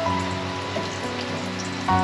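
Spring rolls sizzling and crackling as they deep-fry in hot cooking oil, under background music with held melodic notes.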